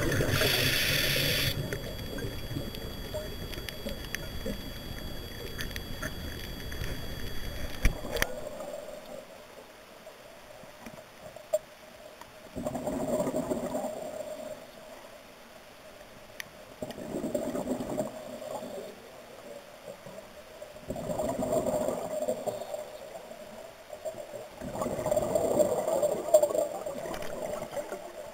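Underwater: a scuba diver's regulator exhalations, bubbling bursts that come about every four seconds in the second part. Before that, for the first eight seconds, a steady rushing water noise that stops abruptly.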